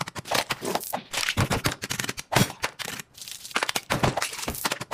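Plastic cling film crinkling and crackling as it is handled and pressed, a rapid irregular run of sharp little crackles.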